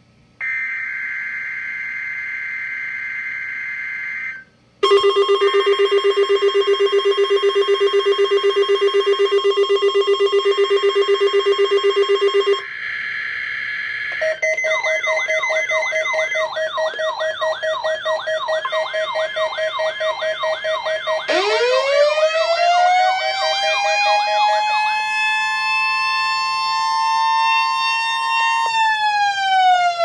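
Several NOAA Weather Radio receivers sounding their alarms together for the Required Weekly Test. A buzzy data tone lasts about four seconds and is followed by loud, rapid beeping. A shorter data tone comes next, then overlapping warbling alarms. About two-thirds of the way in, a siren-like tone joins them, rising, holding, and falling away at the end.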